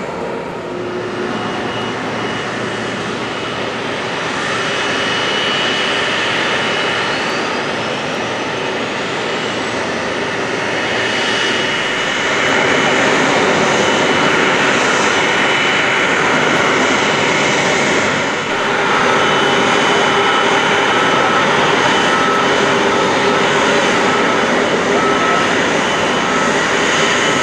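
Rolls-Royce Trent 700 turbofans of an Airbus A330-300 running on the ground, a steady rushing noise with a high whine, a faint whistle climbing in pitch a few seconds in. The sound grows louder about four seconds in and again about twelve seconds in, then holds steady.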